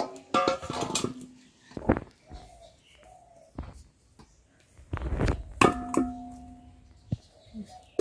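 Metal kitchen vessels and utensils clanking as they are handled and set down, several knocks ringing on briefly, one for about a second and a half past the middle.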